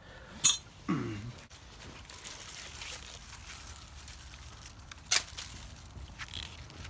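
Dry squash vines and leaves rustling as they are handled, with two sharp clicks about four and a half seconds apart and a short grunt about a second in.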